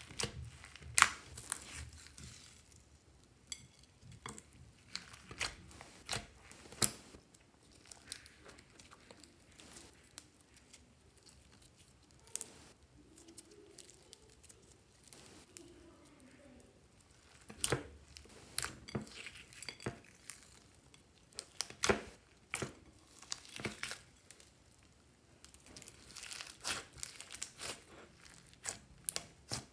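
Hands squishing, stretching and folding thick slime loaded with clay, sprinkles and sequins: irregular sticky crackles and pops, sparser for a while in the middle.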